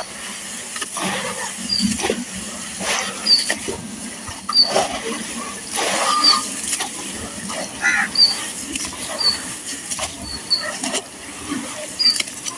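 Wet gritty chunks crumbling and crunching in water, in irregular crackly bursts, with short high chirps about once a second.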